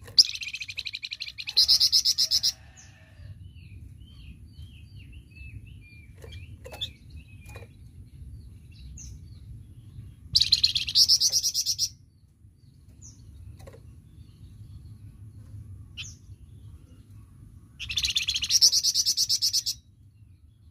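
A flamboyan songbird singing in loud rapid-fire bursts of quickly repeated high notes, three bursts about eight seconds apart, with soft chirps in between. A faint low hum runs underneath.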